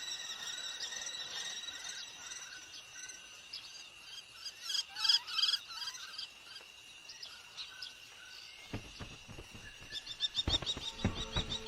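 Birds chirping in short repeated calls over a steady high insect drone, with a louder cluster of calls about five seconds in and a quick run of chirps near the end.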